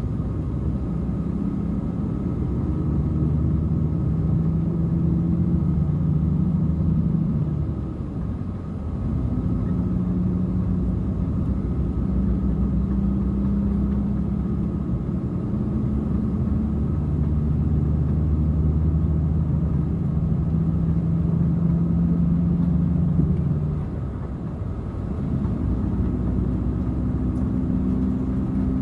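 Engine of a moving motor vehicle heard from on board, a steady running note with a low rumble. Its pitch steps up and down several times, and it eases off briefly twice, about eight seconds in and again near the end.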